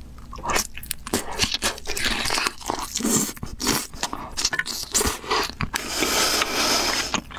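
Close-miked biting and crunchy chewing of a sauce-glazed chicken drumstick, a run of sharp crackles that is densest from about two seconds in until near the end.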